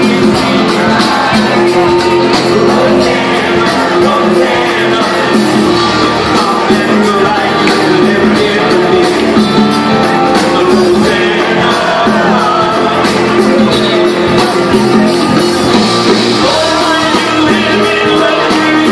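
A live rock band playing with electric guitars, drums and keyboards under a male lead vocal, heard from the audience in a large hall.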